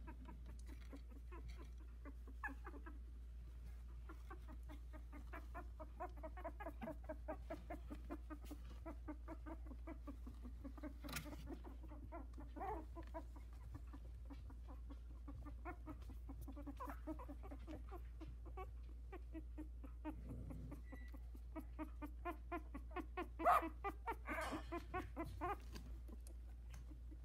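Two-week-old Havanese puppies squeaking and whimpering in a steady stream of short, high little calls, several a second. The calls grow louder near the end.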